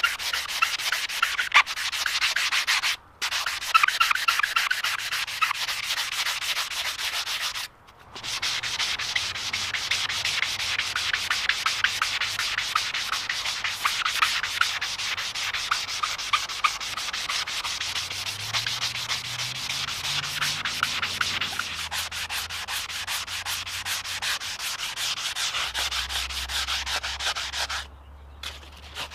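Body filler on a Reed 108 bench vise body being sanded by hand with a sanding block: quick, scratchy back-and-forth strokes, with two short pauses about 3 and 8 seconds in, stopping near the end.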